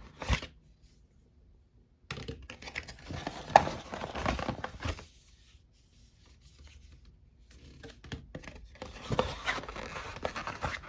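Packaging of a screen protector kit being handled and opened: crinkling, tearing and rustling, with small clicks, in two main stretches separated by quiet gaps.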